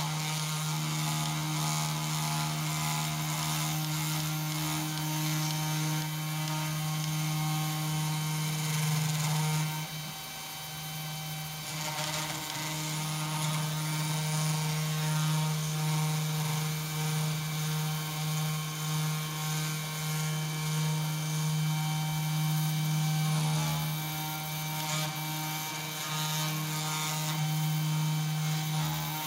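CNC2418 desktop router's spindle running with a steady hum while its 0.2 mm V-bit engraves copper-clad PCB board, the machine moving the bit along the traces. The level dips briefly about ten seconds in.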